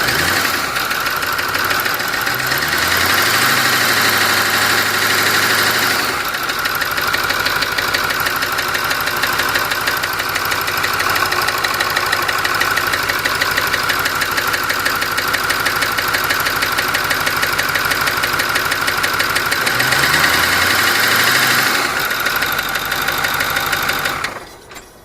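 Ford 6.4 engine running with a knocking noise, which is the fault being shown. It is revved up twice and held for a few seconds each time, about a second in and again near the end. The sound drops away sharply just before the end.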